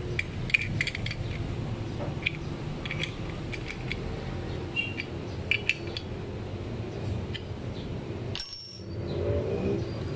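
Scattered light metallic clicks and clinks of steel parts: a tube wrench, nut and holder cup on a brush cutter's gearhead as a circular blade is fastened, over a steady low hum. The sound briefly cuts out near the end.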